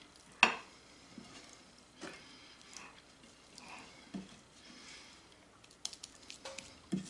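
A spatula spreading and scraping soft herb butter over a raw rib roast on a platter: soft smearing and scraping with scattered small taps. There is one sharp tap about half a second in.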